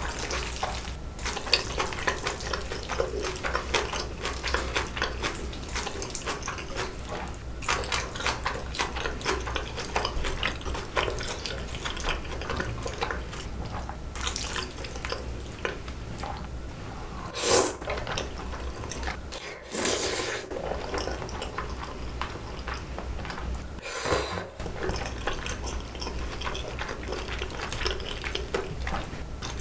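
Close-miked eating sounds: chewing saucy bibim noodles and chopsticks clicking in a glass bowl, with many small wet clicks throughout and a few louder, longer bursts near the middle and later on.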